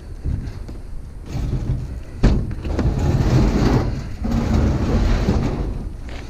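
A washing machine being shifted and handled: a heavy thump about two seconds in, then a few seconds of scraping and rumbling.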